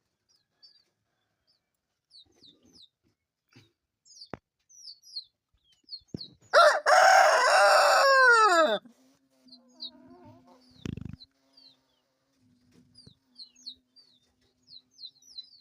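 A rooster crows once, loud, about six and a half seconds in, the call ending in a falling glide. Chicks cheep throughout with short, high, falling peeps, and there is a dull low thump a little after the crow.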